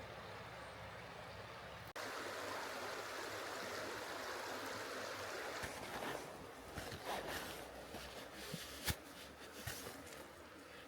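Mountain stream flowing steadily, getting suddenly louder about two seconds in. From about six seconds in, a series of light clicks and knocks sounds over it, with one sharper knock near the end.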